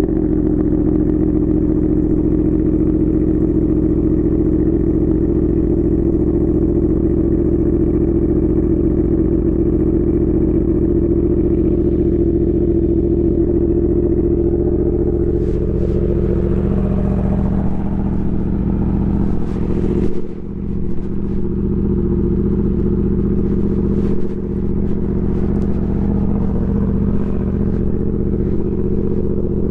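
Yamaha R1 sport bike's inline-four engine running at steady revs, with a couple of brief dips in the sound about two-thirds of the way through.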